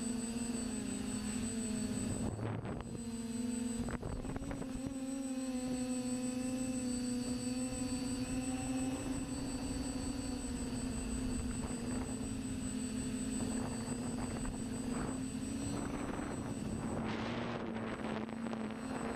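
TBS Discovery quadcopter's motors and 9.5-inch Graupner props in flight, heard from the GoPro mounted on the airframe: a steady droning whine whose pitch wavers slightly with throttle. Gusts of wind buffet the microphone a few times, most of all near the end.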